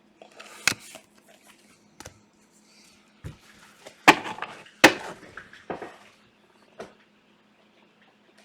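Trading card packs and cards being handled on a table: a series of short rustles and sharp taps, the two loudest a little under a second apart near the middle, over a faint steady hum.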